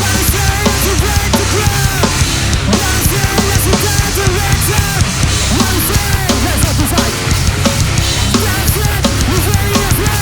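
A live hardcore band playing loud, heavy music: a drum kit and distorted guitars going without a break.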